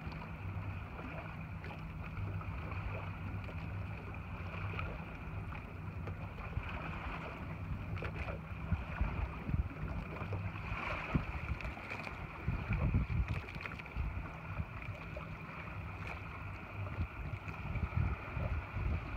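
Boat engine idling steadily with a low, even hum, with gusts of wind rumbling on the microphone now and then.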